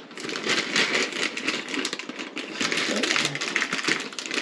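3D-printed plastic parts clicking and clattering against each other as they are picked through and handled, a quick irregular run of small knocks.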